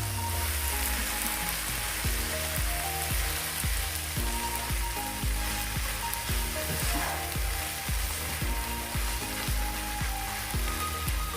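Kimchi fried rice sizzling on a hot cast-iron griddle over a wood fire. Background music with a steady beat plays over it.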